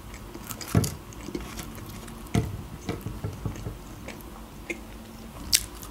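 Chewing and mouth sounds of a person eating fried potato wedges: soft crunches and wet clicks. Two stronger bites come about one and two and a half seconds in, and a sharp click comes near the end.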